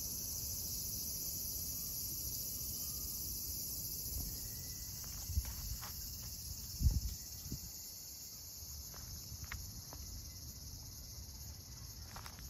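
Steady high-pitched chorus of crickets chirring without a break. A few low thumps and light rustles sound about halfway through.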